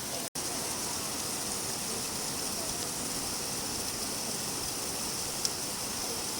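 Steady rain falling, an even hiss, that drops out for an instant about a third of a second in, with one small tick near the end.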